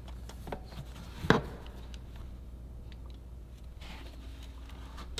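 Engine-bay hoses and hose clamps being handled and refitted: scattered small clicks and rustling, with one sharp click about a second in, over a steady low hum.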